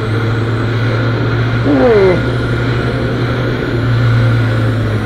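Kawasaki Z800 inline-four engine running steadily at low speed, with wind and road noise. A short falling tone cuts in about two seconds in.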